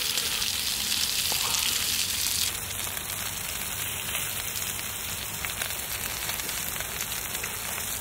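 Pork belly sizzling in a pan on a portable gas stove: a steady frying hiss with faint crackles, dropping slightly in level about two and a half seconds in.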